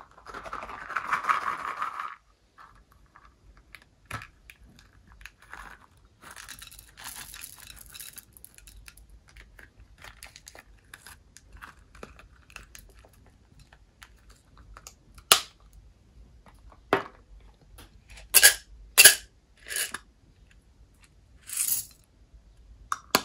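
Slime being mixed and squished by hand: a brief rustling crunch at the start, quieter crackling, then a series of sharp, loud pops and snaps.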